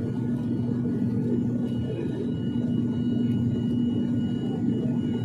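Cabin noise of a turboprop airliner climbing after takeoff: a steady engine-and-propeller drone with a low, even hum.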